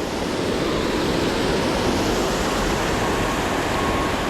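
Waterfall white water rushing steadily.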